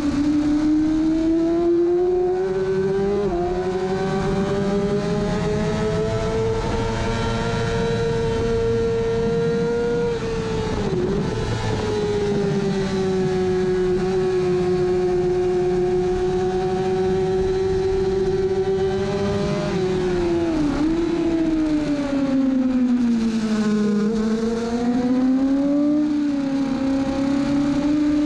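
Kawasaki ZX-6R 600 cc inline-four race engine at high revs, heard from on the bike, with wind rush. The pitch climbs slowly and dips briefly at gear changes a few times. About 23 seconds in it falls and climbs again through a slower corner.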